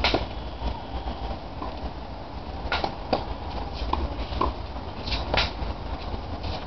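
Tennis ball struck by rackets and bouncing on a hard court during a rally: a handful of sharp pops spaced a second or more apart, the loudest at the start and a close pair about five seconds in.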